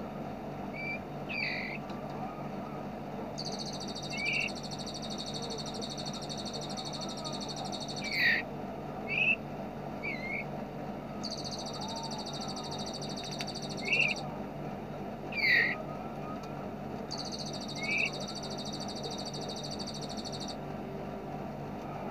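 Recorded songbird tutor track: three long, rapid, rattling trills of about three to four seconds each, typical of a bar-winged prinia's 'ngebren' song, with short sharp falling chirps like tree sparrows squabbling between them. A steady low hum runs underneath.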